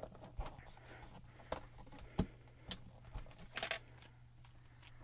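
Light taps and clicks of hands handling clear photopolymer stamps on a stamping platform, a handful of separate small knocks, with a brief rustle about three and a half seconds in.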